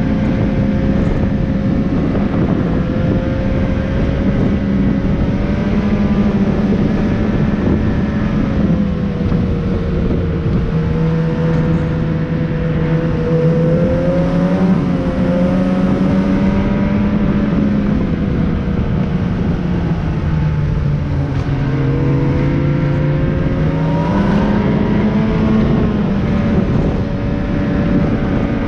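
Vehicle engine running steadily under way, with heavy travel noise; its pitch sags twice and climbs back near the end as the speed changes.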